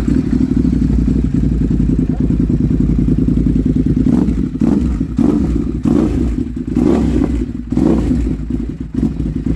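Ducati SuperSport S's 937 cc L-twin idling through a full-system Akrapovič exhaust, freshly started. From about four seconds in it is revved in a series of short throttle blips.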